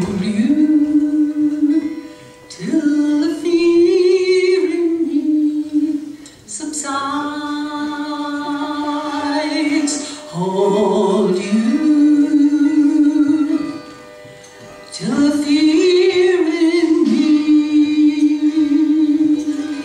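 A woman singing a slow song in long held notes, phrase after phrase with short breaths between, over harp accompaniment.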